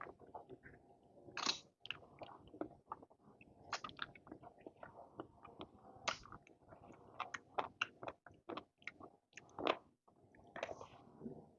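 Close-miked chewing and wet mouth sounds of a person eating, with irregular sharp smacks and crunches.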